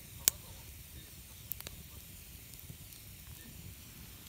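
Wood fire hissing steadily with a few sharp crackling pops, the loudest a third of a second in.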